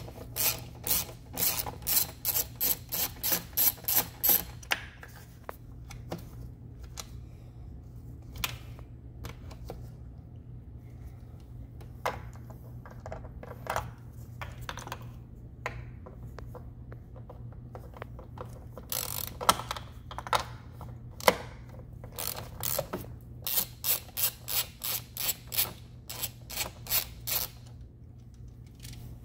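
Hand ratchet with a 10 mm socket clicking as the engine-cover bolts are turned out, in two runs of about four clicks a second at the start and again near the end. Scattered single clicks and knocks come in between, over a steady low hum.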